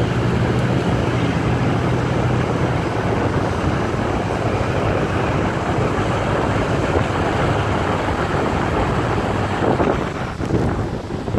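Wind rushing over a phone's microphone at an open car window, over the steady engine and tyre noise of a slow line of cars. A low, steady engine drone is heard for the first three seconds or so.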